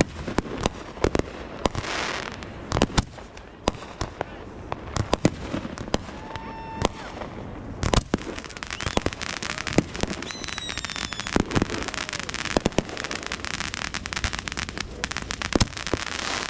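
Fireworks going off: many sharp bangs in quick, irregular succession, coming thicker from about eight seconds in.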